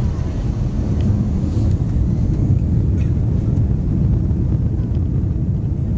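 Steady low rumble inside the cabin of an Airbus A320 taxiing on the ground: engine noise and the rolling of the airframe, holding an even level.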